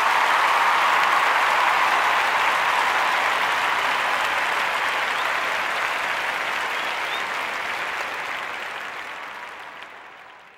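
Crowd applauding, a steady dense clapping that fades away near the end.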